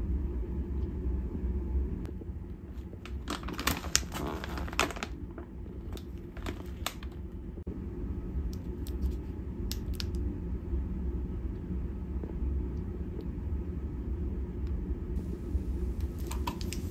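Crinkling and clicking of plastic snack wrappers being handled, in two bursts a few seconds in and again near the end, over a steady low room hum.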